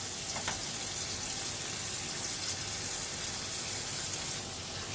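Bathroom sink tap running steadily while warm water is splashed onto the face by hand.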